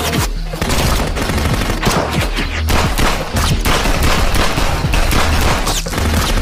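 Gunfight: many gunshots from several guns, firing in quick succession and overlapping throughout.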